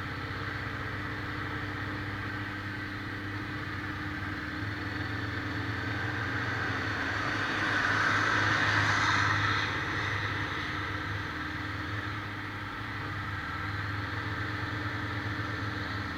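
Vehicle engine running steadily while driving, with road noise. A louder rushing swell about halfway through fades again after a couple of seconds.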